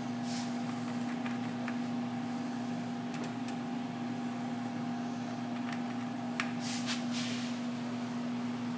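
Steady electrical hum and fan whir from an idle bench-top CNC mill setup and its control computer, with a few faint clicks, as of keys being pressed, a few seconds in and again near the end.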